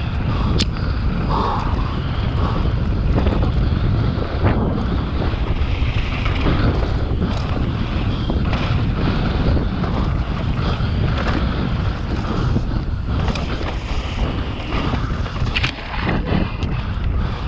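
Wind buffeting the microphone of a camera riding on a mountain bike descending a dirt singletrack, with tyre noise on the dirt and frequent clicks and knocks from the bike rattling over bumps.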